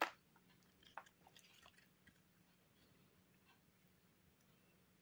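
Small scissors snipping through orchid roots while the dead roots are trimmed away: one sharp snip at the start, then a few faint clicks over the next two seconds, then near silence.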